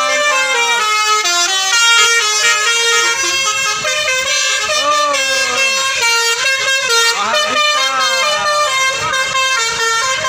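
Telolet musical air horns on tour buses playing quick multi-note melodies. Several tunes overlap and answer one another, and some notes slide up and down.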